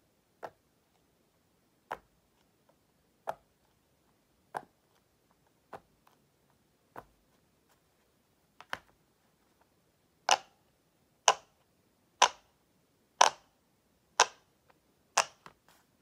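Pop It fidget toy's silicone bubbles pressed one at a time, a single soft pop about every second and a half, growing louder and coming about once a second from about ten seconds in.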